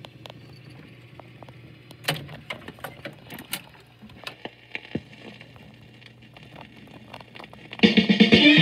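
Jukebox record-changer mechanism running with a low motor hum and a string of clicks and clacks as it pulls a record out of the row and onto the turntable. Near the end the record starts playing: much louder guitar music.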